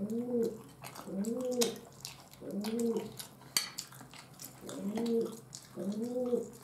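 A man humming a short closed-mouth "mmm" while chewing, each hum rising and falling in pitch, about once a second with a pause midway. Wet smacking clicks of chewing come between the hums.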